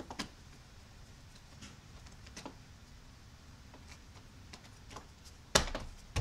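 A 2015 Scion xB's plastic door sill trim panel being handled and lined up over the sill, with a few light taps and clicks, then a loud knock about five and a half seconds in as it is pressed back down onto its clips.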